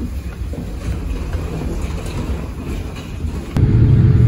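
Low, rattling rumble in an airport jet bridge during boarding. A little over three seconds in it cuts suddenly to the louder, steady low drone of an airliner cabin in flight.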